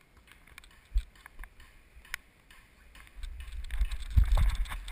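Wind buffeting the microphone: a low rumble that swells from about three seconds in and grows louder toward the end, with a few faint taps before it.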